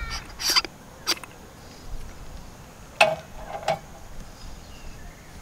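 Light clicks and knocks of metal camp coffee gear being handled on a metal mesh table, with two louder, briefly ringing clinks about three seconds in, under a second apart.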